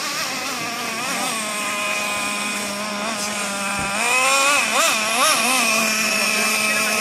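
Traxxas Revo 3.3 nitro RC truck's small two-stroke glow engine running, its whine rising and falling with the throttle, with a few quick revs about four to five seconds in.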